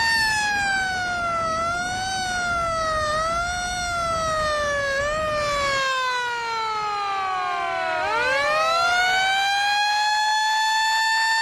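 Roof-mounted motor-driven siren on an emergency vehicle, wailing. Its pitch slides down in several steps with brief small rises, then about eight seconds in it winds back up and holds a steady high tone. A low road and engine rumble runs under it for the first half.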